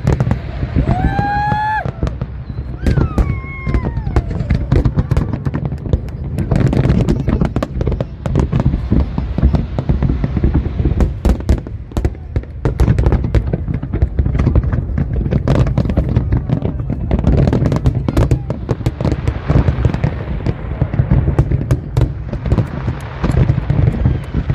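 A large fireworks display going off: a dense run of sharp bangs and crackles with no break. There are whistling pitch glides about a second in and again a couple of seconds later.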